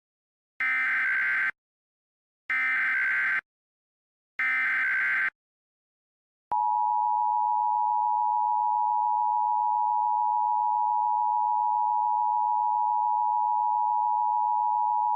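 Emergency Alert System SAME header: three short bursts of shrill digital data tones, about two seconds apart. About six and a half seconds in, the steady two-tone EAS attention signal starts.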